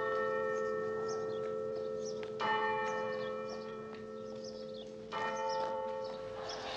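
A church bell tolling at a slow, even pace, a stroke about every two and a half seconds, each one ringing on and slowly dying away.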